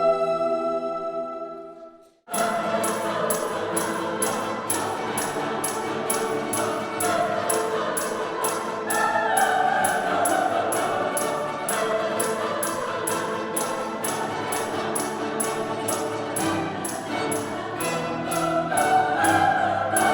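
Concert choir singing with string and keyboard accompaniment. A held chord fades away, there is a brief silent break about two seconds in, and then a new passage starts with choir and instruments over a steady crisp beat about twice a second.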